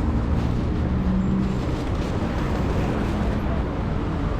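Steady street-traffic rumble of passing motor vehicles, with a low engine hum.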